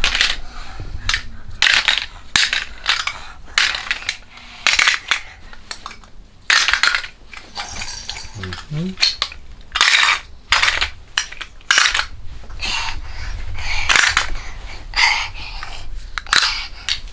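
Toy food pieces clattering as they are dropped and tossed one after another into a bucket: irregular sharp clacks and knocks, several bunched together near the middle and end.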